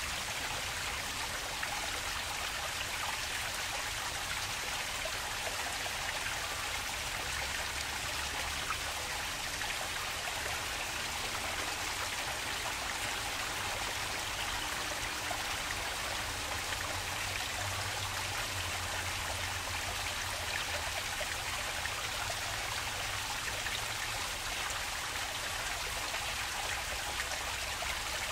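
Flowing water in a park stream, a steady, even rush with no change in level.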